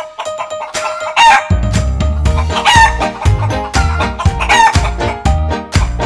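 Rooster crowing, repeated about three times, over upbeat background music with a steady beat.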